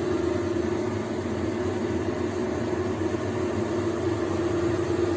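Water at a rolling boil in a steamer pan under a wire rack, a steady rushing noise over a constant low hum.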